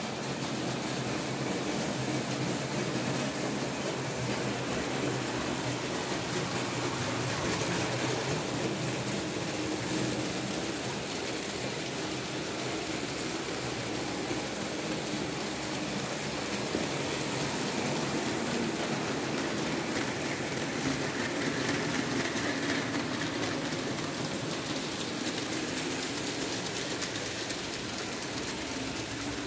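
Märklin H0 model train running on the layout's metal track: a steady whirr and rattle of the small motor and wheels on the rails.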